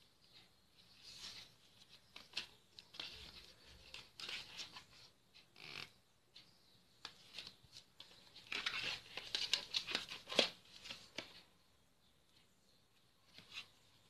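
Thick board-book pages and cut-out card flaps being handled and turned by hand: faint rustling, scraping and clicking of card, busiest a little past the middle.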